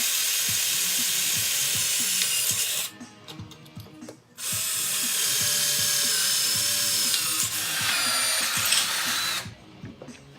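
Hand-held electric drill boring into metal with a 3/16-inch titanium nitride bit run dry, without cutting oil. It drills in two runs with a short pause between, the bit squealing as it cuts.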